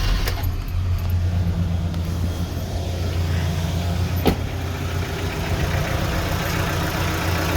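Evotech 2.7 four-cylinder engine idling steadily and quietly, without its usual tapping. Oil poured into the cylinders has temporarily silenced the knock, which the mechanic puts down to sunken exhaust valve seats.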